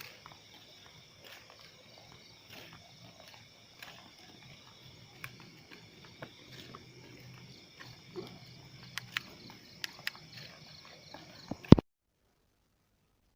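Steady high chirring of night insects, with scattered sharp clicks and taps that come more often toward the end, then one loud knock after which the sound cuts off abruptly.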